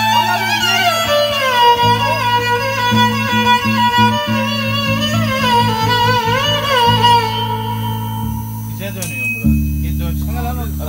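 Violin playing a slow, ornamented melody with wide vibrato. It fades out about seven seconds in. A steady low hum runs underneath, growing louder near the end as a voice comes in.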